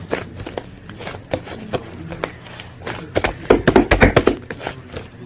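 Hands squishing and poking slime, making a string of wet clicks and pops that bunch up and grow loudest about three seconds in.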